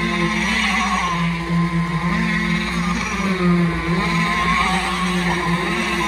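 Engine of the concrete-pumping equipment running steadily while concrete flows out of the pump hose; its pitch dips briefly about a second in and again around four seconds, as the load changes.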